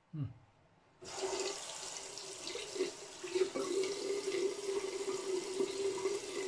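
Bathroom sink tap turned on about a second in and running steadily into the basin, a steady hiss with a ringing tone in the stream, as water is run to rinse the face after a shave.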